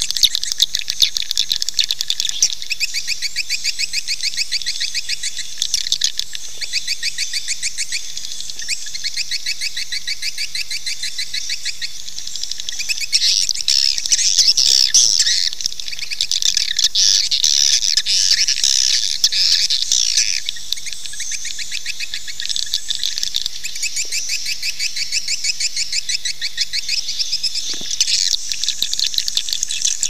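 Swiftlet call track: rapid, high-pitched chirping twitters repeated on and on, thickening into denser, louder chatter around the middle. It is a 'panggil' lure call, played to draw swiftlets to roost and nest in a swiftlet house.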